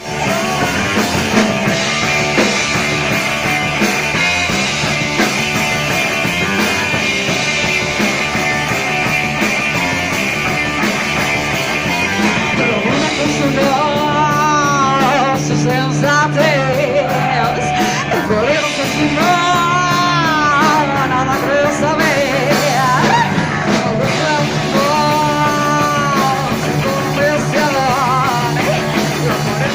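Live rock band playing a song at full volume, with singing.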